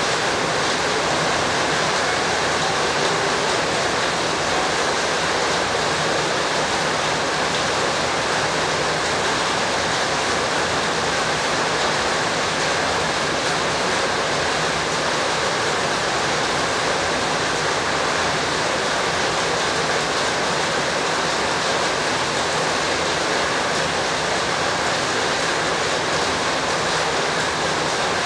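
A steady, even rushing noise with no breaks and no separate sounds standing out.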